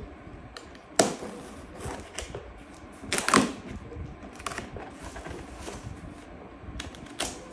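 A utility knife slitting packing tape along the seam of a cardboard box, with scraping strokes and sharp clicks and knocks of the cardboard being handled; the sharpest clicks come about a second in and around three seconds in.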